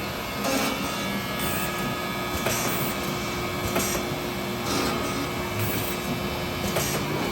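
Gannomat CNC drilling and dowel-insertion machine running through its cycle: a steady motor hum with short hisses of air from its pneumatics about once a second.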